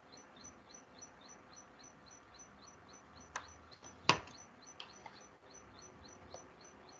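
Faint, high chirps repeating evenly about three times a second, with a few scattered clicks, the loudest about four seconds in.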